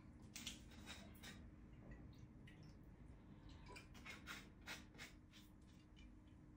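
Near silence, with scattered faint clicks and taps from handling a glass balsamic vinegar bottle and its cap as it is opened and tipped over a bowl; a faint steady hum lies underneath.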